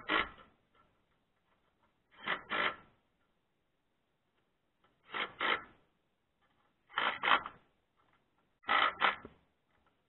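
Cordless drill-driver running in short paired bursts, two quick trigger pulls about every two seconds, driving screws into the antenna dish's panel.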